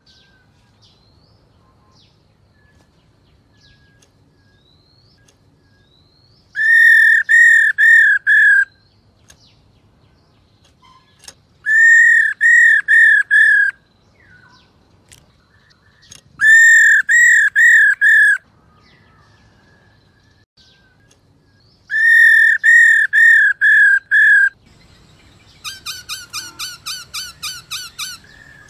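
Black-throated laughingthrush calling in bouts of about five loud, clear, identical whistled notes, each bout a couple of seconds long, with pauses of a few seconds between them. Near the end comes a faster, softer run of about a dozen notes at some four a second.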